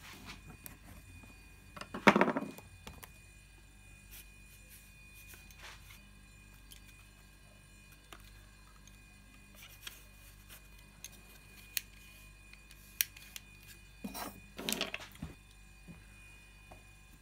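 Workbench handling noises. A brass lens screwed to a wooden lens board, and a screwdriver, are picked up, turned over and set down on a wooden bench top. There is a sharp knock and scrape about two seconds in, scattered small clicks, and a second cluster of knocks and scrapes near the end.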